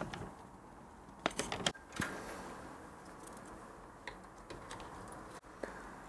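Faint handling noise: a few short clicks and rustles about a second in, then scattered single ticks, as a paper manual and the parts around it are handled.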